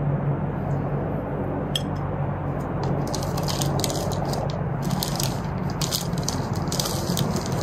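Dry granules rattling as they are shaken out of a plastic bag into a planting hole, in a string of short crisp bursts through the second half. A steady low hum runs underneath.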